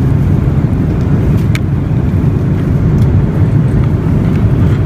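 Steady, loud cabin rumble of an airliner in flight, heaviest in the low end. One light click about one and a half seconds in.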